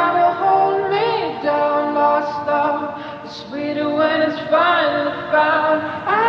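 Music: a song of singing voices holding notes and gliding between them, with little sign of instruments.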